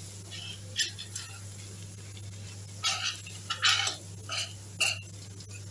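Metal spoon scraping and stirring ground egusi (melon seed) as it fries in a large metal pot, turned so it won't stick to the bottom. The scrapes come in short strokes at irregular intervals, over a low sizzle and a steady low hum.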